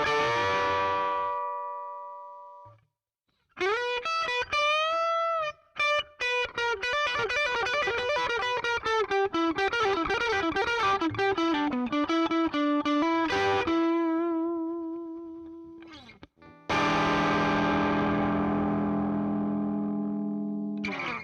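Distorted electric guitar through the ZOOM G2X Four's Fender Deluxe Reverb amp model at high gain: a ringing chord that fades, then bent notes with vibrato, a fast run of single notes and a held note. A final chord rings for about four seconds and is cut off abruptly near the end.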